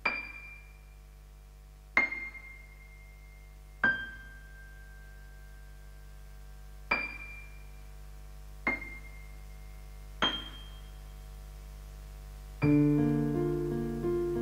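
Slow piano music: six single high notes struck a second or two apart, each ringing out and fading over a held low note, then fuller chords come in near the end.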